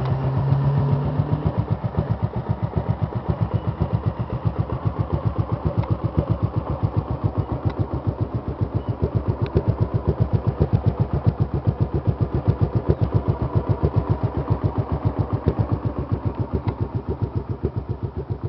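Kasinsky Comet 250's V-twin engine idling with an even, regular pulse through the exhaust that is for sale. It settles down from a slightly raised speed to idle about a second and a half in.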